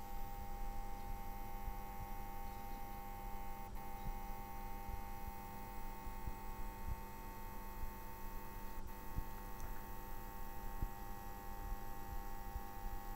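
APC UPS on standby humming and fizzing: a steady electrical hum with a higher whining tone over a hissing fizz, coil whine and power-rail hum from its power electronics, picked up with a microphone held close to its case.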